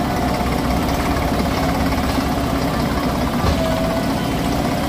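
Heavy diesel engine of the loading machinery (backhoe loader or farm tractor) running steadily and loud, with a faint whine that comes and goes.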